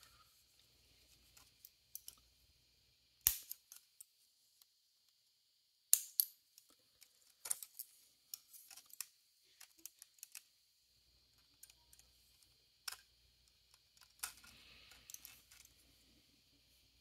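Flush cutters snipping at a 3D-printed plastic part: a series of sharp, scattered clicks, the loudest about three and six seconds in.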